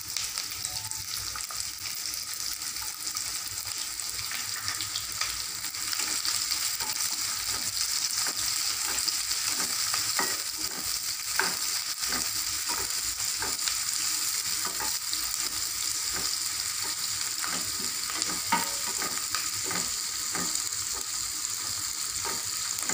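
Chopped small onions (shallots) and curry leaves sizzling steadily in hot groundnut oil in a kadai, with the scrape and tap of a wooden spatula stirring them now and then. The sizzle grows a little louder about six seconds in.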